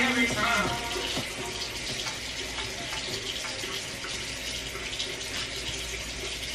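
Tap water running steadily from a faucet into a sink.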